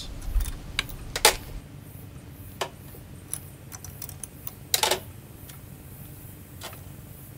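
Scattered metallic clicks and clinks of a spark plug wrench and spark plugs being handled as the plugs are taken out of an outboard motor. The loudest clicks come about a second in and just before five seconds.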